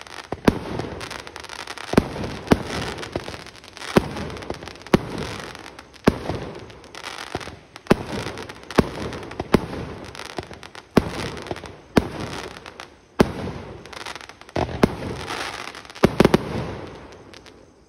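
Legendary Fireworks 'Treasure Island' 20-shot fireworks cake firing shot after shot: sharp bangs about once a second, some coming in quick pairs, each followed by a wash of crackle. The last bangs come near the end, then the sound dies away.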